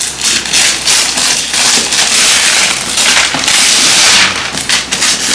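Paper gift wrapping being torn and crumpled as a present is unwrapped, a dense irregular crackling and rustling.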